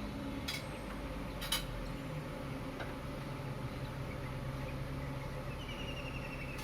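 Early-morning city ambience: a steady low hum of distant traffic, broken by two sharp clicks or clinks in the first two seconds. Near the end comes a short chirping trill that falls slightly in pitch.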